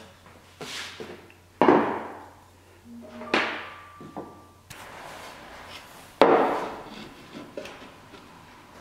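Pneumatic brad nail gun firing three times into a birch plywood drawer box, each shot a sharp snap that trails off over about half a second, with lighter knocks of the gun and the box being handled in between.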